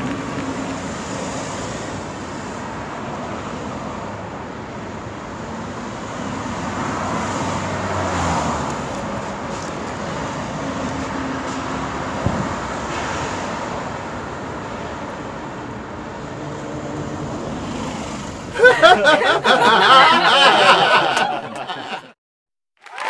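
Steady road-traffic noise. Near the end a much louder sound with wavering pitches takes over, then cuts off abruptly into a moment of silence.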